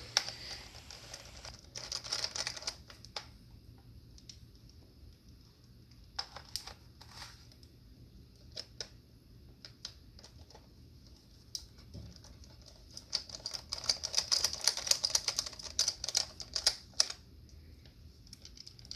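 Irregular rapid clicking and scraping of a screwdriver tip grinding into a security screw head in a plastic Xbox 360 controller shell, boring out the head so it can be turned. It comes in short bouts, with a dense run of clicks about two-thirds of the way through.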